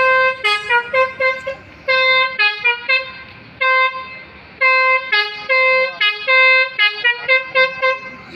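Bus 'telolet' musical air horn playing a tune: quick runs of short notes and several longer held notes, stepping between a few pitches, with short pauses between phrases.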